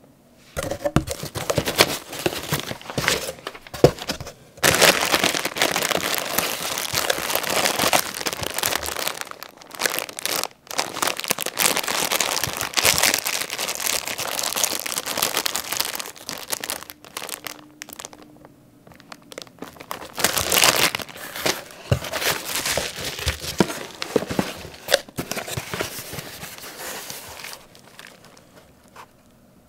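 Packaging being handled by hand: a plastic-wrapped pack of paper coffee filters and plastic bubble wrap crinkling, and cardboard sliding and rubbing. It goes on nearly the whole time, with a few short pauses.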